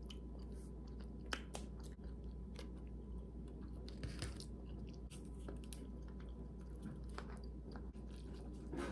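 Faint close-up chewing of soft macaroni and cheese, with scattered soft mouth clicks, over a steady low hum.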